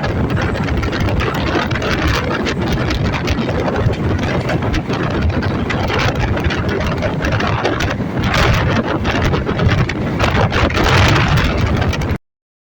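MEMU electric train running across a railway bridge: a steady, loud rumble and rattle of wheels on the rails, with wind buffeting the microphone. It cuts off abruptly near the end.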